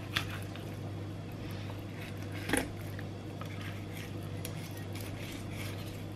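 Faint wet squishing and scraping as a flexible filleting knife slices a kahawai's flesh along the backbone on a wooden cutting board, with small ticks and one brief louder tap about two and a half seconds in.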